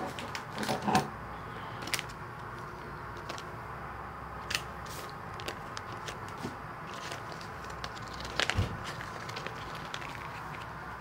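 Quiet workbench room tone with a steady low hum, broken by a few scattered light clicks and taps of small parts being handled, and a louder knock about eight and a half seconds in.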